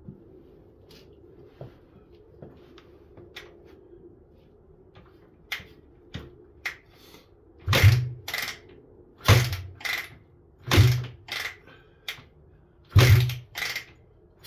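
Suzuki DR125 being kick-started: four heavy thuds of the kick-start lever about a second and a half apart, each followed by a lighter knock, after a few lighter clicks. The engine does not catch and run.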